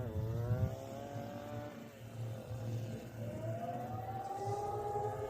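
Several civil-defence sirens winding up for the weekly test signal, overlapping wails at different pitches. One climbs from about three seconds in and settles into a steady high tone. A steady low hum runs underneath.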